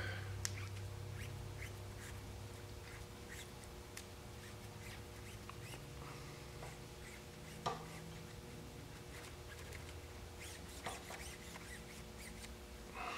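Guitar string being worked by hand through a removed ATV brake line to clear a partly jammed passage: faint scattered ticks and rubbing of the wire in the hose, over a low steady hum.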